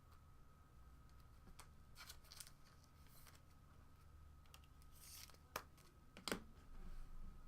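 Faint handling of trading cards: soft rustles and scrapes, with two sharp clicks about five and a half and six seconds in, over a faint steady hum.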